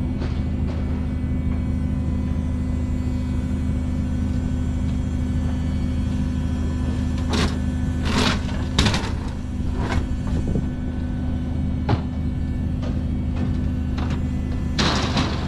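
Steady low mechanical drone of running machinery, with a few short sharp knocks, two close together about halfway through and one near the end.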